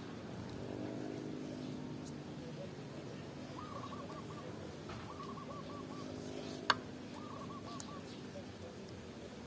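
A bird calling in the background: a short run of quick notes, repeated three times about a second and a half apart. One sharp click stands out about two-thirds of the way through.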